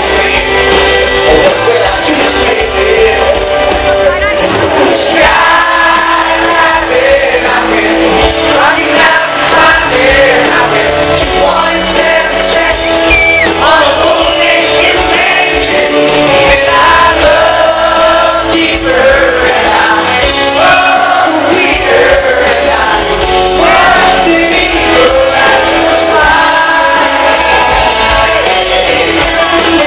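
Live country band with a male lead singer, played loud through a concert sound system and recorded from within the audience.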